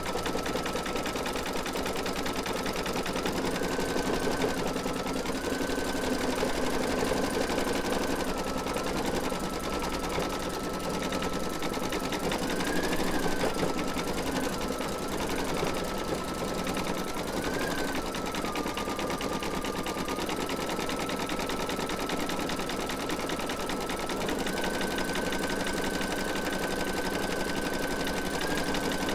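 Computerized embroidery machine stitching a free-standing lace design, its needle running rapidly and continuously. A steady motor whine underneath steps up and down slightly in pitch a few times as the stitching speed changes.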